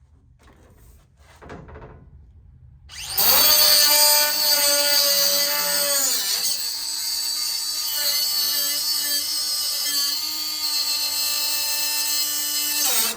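Handheld electric power tool switched on about three seconds in, spinning up and running with a steady motor whine, its pitch dipping briefly as it bears on the work, then switched off near the end. A few faint handling knocks come before it starts.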